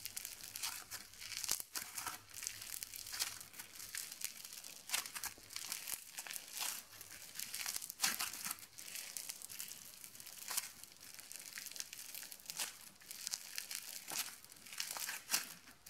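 Kuglevoks pearl clay, a soft modelling clay packed with tiny foam beads, being squeezed and stretched by hand. Its beads give off a quiet, irregular crackling.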